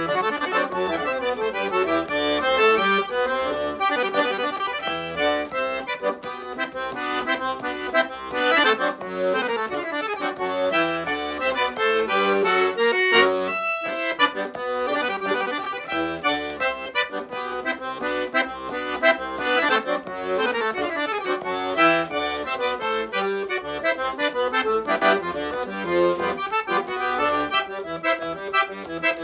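Accordion music, a southern Brazilian gaúcho tune played in quick runs of notes, with a brief break about thirteen seconds in.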